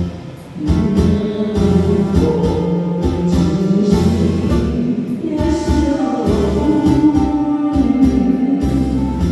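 Pop song playing: a sung melody over band backing with a steady low beat.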